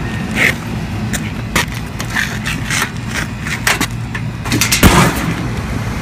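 HVAC unit running with a steady low hum; its belt-driven blower is turned by a three-phase motor running backwards. Handling knocks and scrapes come on top, the loudest about five seconds in.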